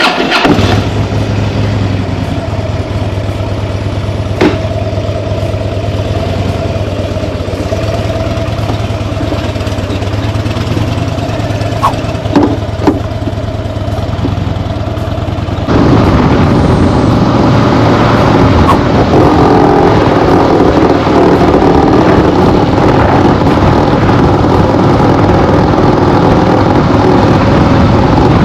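2008 Harley-Davidson Fat Bob's V-twin engine catching suddenly and running with a steady low beat and a few sharp clicks, then going louder and rougher about sixteen seconds in. The bike has lots of vibration and rattling, which the owner suspects comes from worn motor mounts.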